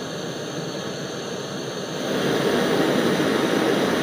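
Small LPG gas torch burning with a steady roar as it heats a soldering iron tip. It grows louder about two seconds in as the gas valve is opened further.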